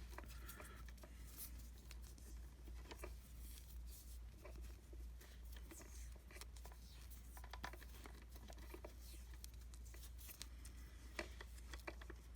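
Faint rustling and scattered small clicks of vinyl electrical tape being pulled off the roll and wrapped around soldered cord wires, over a low steady hum.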